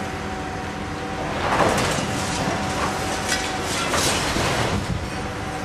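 An excavator's engine runs steadily while its arm breaks down a brick tenement wall. From about a second and a half in, masonry crashes and crumbles for about three seconds, loudest at the start and again near the end.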